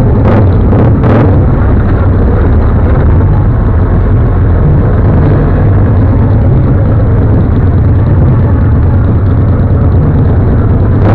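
Motorcycle engines running in a group riding slowly through traffic: a loud, steady low rumble.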